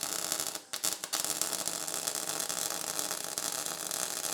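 MIG welding arc crackling and spattering, with pure CO2 shielding gas. The arc breaks off briefly a little over half a second in, then restarts and runs steadily. A lot of spatter: the voltage is still on the hot side.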